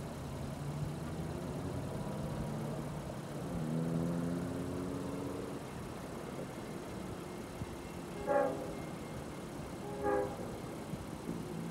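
LIRR DE30AC diesel-electric locomotive approaching with its engine running, sounding its horn: a blast of about two seconds around four seconds in, then two short toots about eight and ten seconds in.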